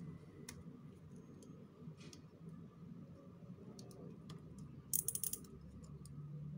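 Small metal blade cutting and scraping a block of dry soap: scattered crisp clicks and crackles as flakes break off, with a louder run of crackles about five seconds in.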